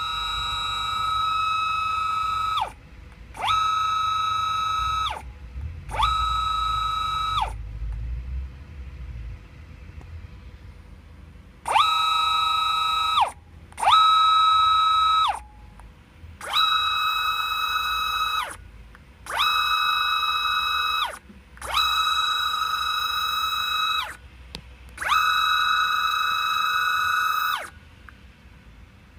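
Closed-loop hybrid stepper motor with encoder, run by its hybrid servo driver, spinning up to about 1500 rpm and back down again and again: a high, musical whine of several steady tones that bends in pitch at each start and stop. About nine runs of one and a half to three seconds each, with short pauses between them.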